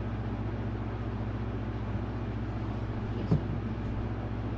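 Steady low hum of room noise, with one short sound about three seconds in.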